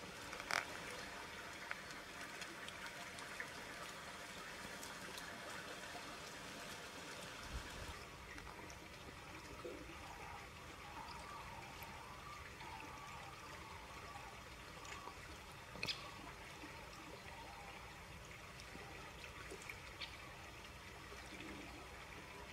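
Stream water trickling steadily, with a couple of brief sharp ticks, one just after the start and one a little past halfway.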